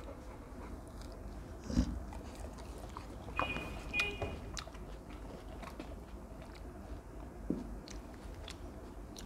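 Quiet chewing and biting of pieces of fresh fruit, with scattered soft clicks and a soft thump about two seconds in. Two brief high squeaks come about three and four seconds in.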